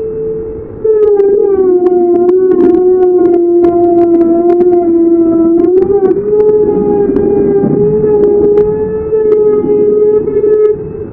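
Electric router cutting grooves into a wooden door panel: the motor's whine starts loud about a second in and drops in pitch as the bit bites in. It comes back up near the middle and holds steady, with scattered ticks of chips and wood over the whine.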